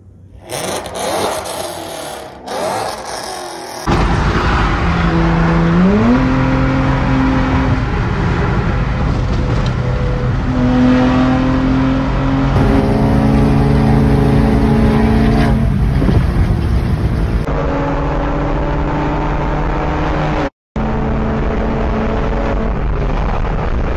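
Car engines revving unevenly for a few seconds, then a Nissan Altima's engine running hard at highway speed, a steady drone that steps up and down in pitch several times as the revs change.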